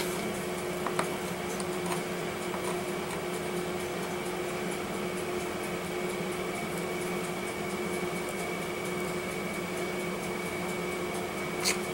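Steady room hum from an electrical appliance, with a faint constant high whine on top. A few faint light ticks come about one to two seconds in.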